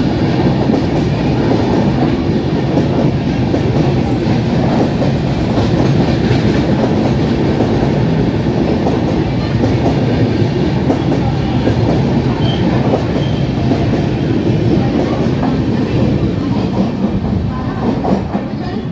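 Express train's passenger coaches passing close by at speed, their wheels running loudly and steadily on the rails. The sound eases off slightly near the end.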